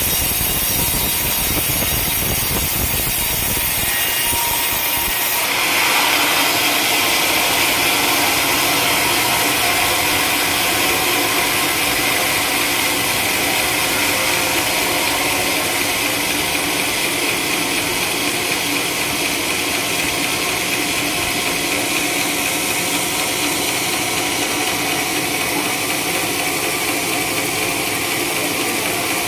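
Sawmill blade sawing lengthwise through a coconut palm log, a loud, steady cutting noise. About five seconds in, the sound shifts higher and harsher and then holds steady.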